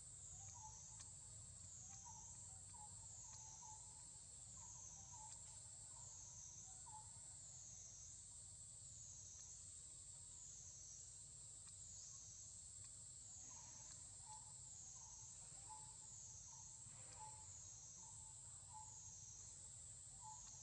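Faint forest insect drone, high-pitched and rising and falling steadily about once every second and a half, with two runs of short, quick chirps in the middle range.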